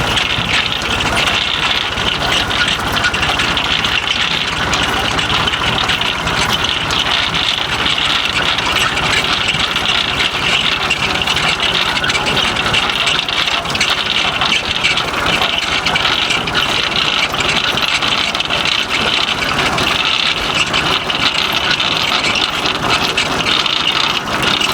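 An IHC tractor engine runs steadily while the Hagedorn potato harvester it drives clatters and rattles continuously, with no pause or change.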